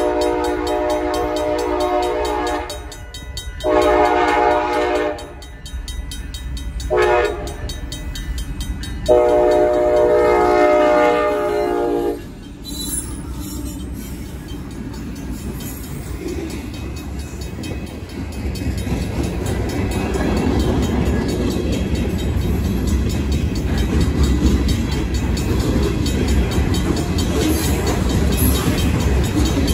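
Union Pacific freight locomotive's horn sounding the grade-crossing signal, long, long, short, long, over the ringing of a RACO mechanical crossing bell. After the last blast, about twelve seconds in, the locomotive and its freight cars pass close by, the wheel-on-rail clatter growing louder.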